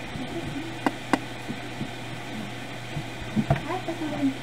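A few sharp clicks and light knocks from a camera being handled and moved about on a desk, two close together about a second in and a cluster near the end, over a steady low hum and hiss.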